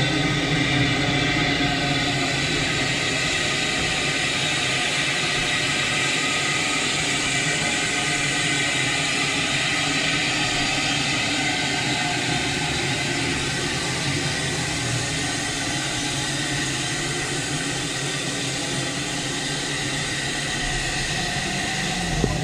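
Baldwin steam locomotive standing with steam up: a steady hiss of steam over a low hum.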